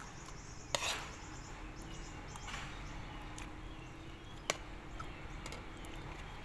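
Metal spoon and fork clinking and scraping against a plate of food, with two sharp clinks, one under a second in and one about four and a half seconds in, and lighter taps between.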